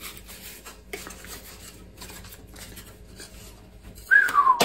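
Balsa-wood toy glider being handled and fitted back together: light rubbing and scraping, with a small click about a second in. Near the end, a short, loud whistle falling in pitch.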